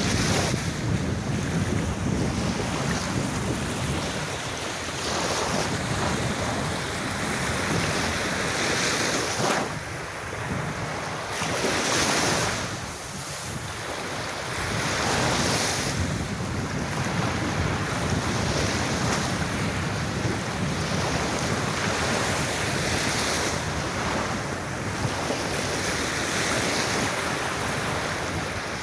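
Sea waves breaking and washing up on a beach, swelling and easing every few seconds, with wind buffeting the microphone.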